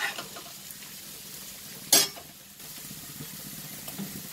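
Sautéed bitter gourd slices sizzling faintly in an aluminium pot as a spoon stirs them, with one sharp knock about two seconds in.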